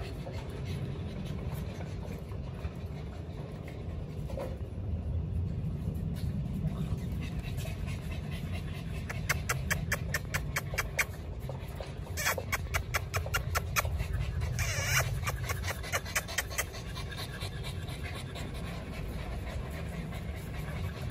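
American Bully puppies panting in quick, rapid breaths, in two spells about halfway through, over a steady low rumble.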